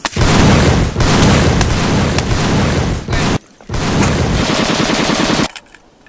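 Heavy gunfire and blasts in two dense, loud bursts: one lasting about three seconds, then after a brief gap another of about two seconds, each cutting off abruptly.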